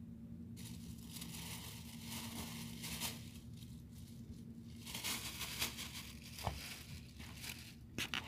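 Thin clear plastic bag crinkling and rustling as it is handled, in flurries that grow louder near the end, over a faint steady low hum.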